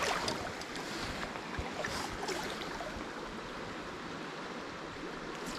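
Steady rush of a creek's flowing current, running a little high, with a few faint ticks about two seconds in.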